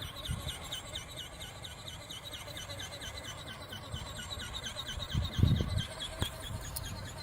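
Wind buffeting the microphone in low rumbles, with a strong gust about five seconds in, over a steady high chirping that pulses about eight times a second.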